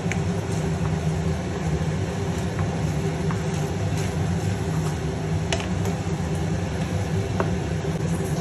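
Steady low mechanical hum, with a few light clicks as a wooden spatula stirs sauce in a nonstick pan.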